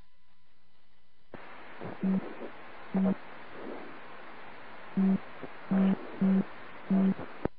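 An aircraft radio frequency held open by a stuck microphone. Steady radio hiss comes in about a second in, with six short, low-pitched tones from the open channel.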